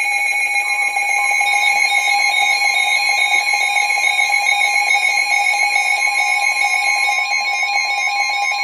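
Weather alert radios sounding the alarm for a severe thunderstorm warning: several steady electronic tones at once, with a repeating beep pattern on top. A further steady warning tone comes in about a second in.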